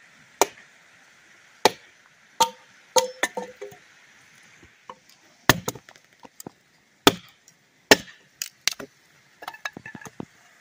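Hatchet chopping firewood against a log and stone: about a dozen sharp strikes at irregular intervals, a few of them ringing briefly.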